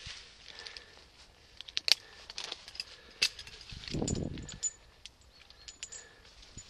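Scattered sharp clicks and knocks of a tree climber's gear: carabiners and hardware clinking and boots and rope knocking against the tree, with a short low rustle about four seconds in.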